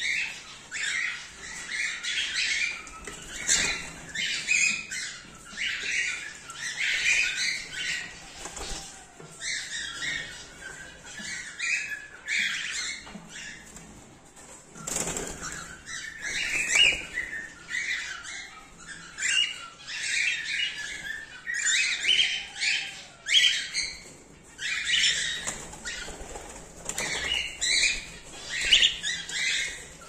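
A colony of cockatiels chirping and calling in rapid, overlapping bursts, with wing flaps as birds flutter between perches.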